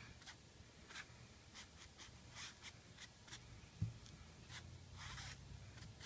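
Round brush scrubbing pigment onto cloth in short, quick strokes, each a soft scratchy swish, with a dull knock just before four seconds in.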